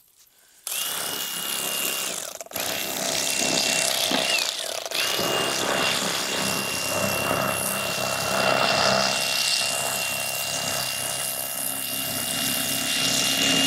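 Electric fillet knife running, a steady high-pitched motor whine with the buzz of its reciprocating blades, as it cuts lengthwise through a striped bass. It starts about a second in, cuts out twice in the first five seconds, the second time with its pitch sagging, then runs on steadily.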